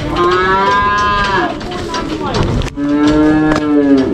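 Cattle mooing: two long, drawn-out moos, the second starting a little past halfway through and ending with a slight drop in pitch.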